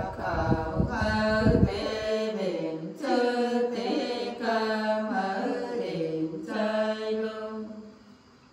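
Nùng folk song sung unaccompanied by women's voices, long drawn-out notes stepping slowly between pitches in a chant-like line. A low rumble sits under the singing for the first two seconds, and the singing stops shortly before the end.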